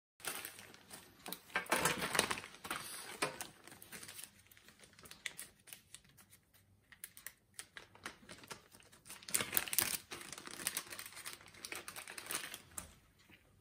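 Clear plastic bags of test leads and probe clips crinkling and rustling as they are handled and opened, with many small clicks and rattles of the plastic connectors. The loudest bursts come about two seconds in and again about nine to ten seconds in.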